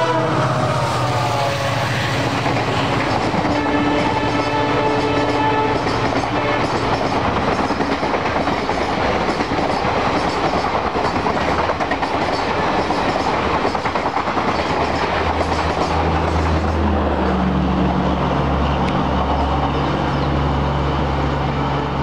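EMD WDP4 diesel locomotive sounding its horn as it passes at speed, the pitch falling as it goes by, with a second horn blast about four seconds in. Passenger coaches then rush past with rail clatter, and near the end a low steady engine hum takes over.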